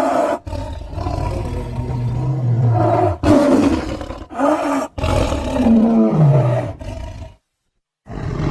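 Big-cat roars and snarling growls edited together as a creature sound effect: several short calls in a row with abrupt cuts between them, including a deep held growl in the first few seconds and a call that falls in pitch about six seconds in. The sound drops out completely for about half a second near the end, then the roaring resumes.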